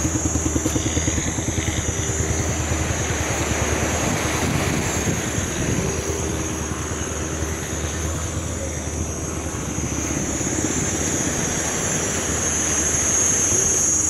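Combustion engine running steadily with a rapid low pulse and a pitched hum, slightly louder near the start and again near the end. A steady high-pitched whine sits above it.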